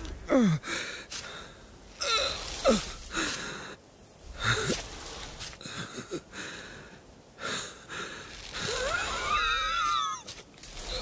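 An animated sheep character's wordless vocal sounds: several short cries that fall in pitch, then a longer wavering cry about nine seconds in.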